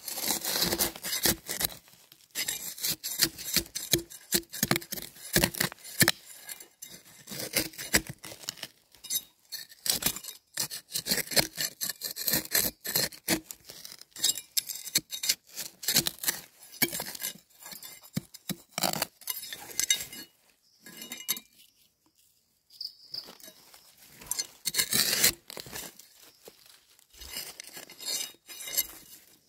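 Rapid, irregular sharp clicking and crackling, dense for most of the time, with a short near-quiet spell about two-thirds of the way through and another loud flurry a few seconds later.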